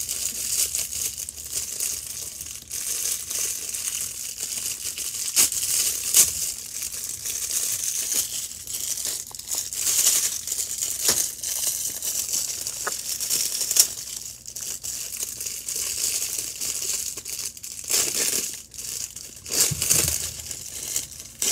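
Thin clear plastic packaging bag crinkling and rustling as it is handled and pulled open, with a few sharp crackles along the way.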